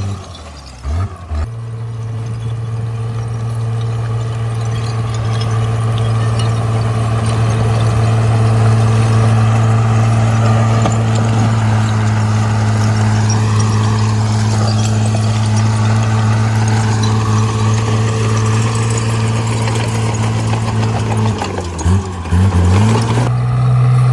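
Komatsu D37P bulldozer's diesel engine running at a steady pitch, with short dips about a second in and again near the end.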